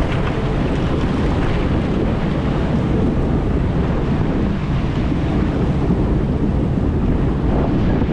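Wind buffeting the microphone on the open deck of a small commuter ferry under way, over the steady low drone of the ferry's engine.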